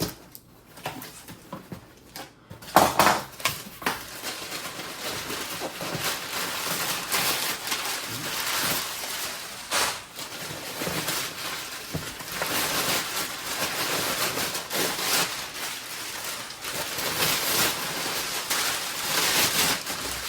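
Shipping box being opened by hand and its packing paper rustled and crumpled, with a sharp crack about three seconds in and then continuous rustling.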